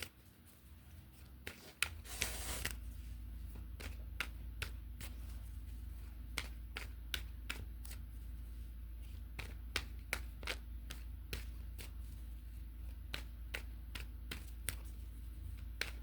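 Tarot cards being shuffled by hand: a steady run of light card clicks and slaps, with a short rush of riffling about two seconds in. A low hum, the room heater, comes on at about the same moment and runs underneath.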